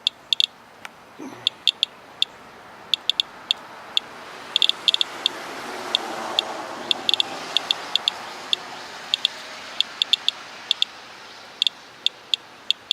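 Geiger counter clicking at random intervals, a few sharp ticks a second, while reading rainwater at about eight times background radiation. A broad rushing sound swells and fades through the middle.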